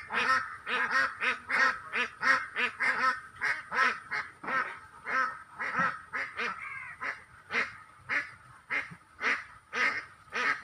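A bird giving a fast series of short, loud calls, about three a second, with a brief lull a little past halfway.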